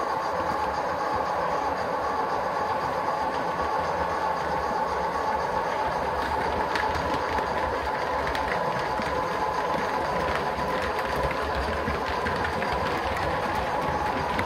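Gauge 1 model crane train running along the track: a steady mechanical whirr with a constant high hum, and light clicks from the wheels on the rails.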